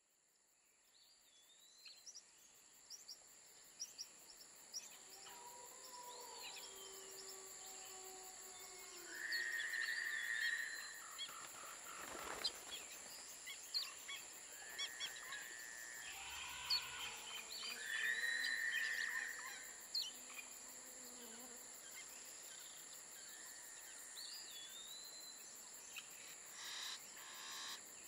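Nature ambience fading in from silence over the first few seconds: a steady high insect drone with scattered short bird chirps and calls.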